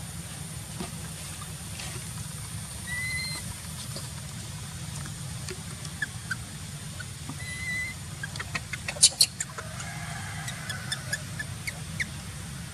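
Outdoor ambience: a steady low rumble with a faint high whine, two brief high chirps, and a quick run of sharp clicks about nine seconds in.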